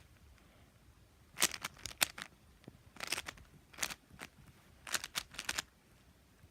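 Rubik's Cube being turned quickly by hand, its plastic layers clicking in four quick flurries of turns with short pauses between.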